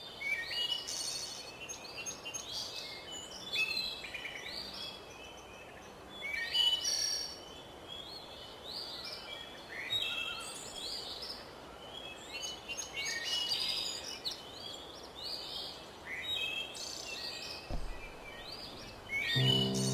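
Many birds chirping and singing in overlapping short calls and trills over a faint steady hiss. Music with steady low notes comes in right at the end.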